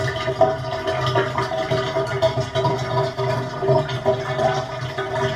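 Bathtub water draining out with a steady, fluctuating gurgling hum.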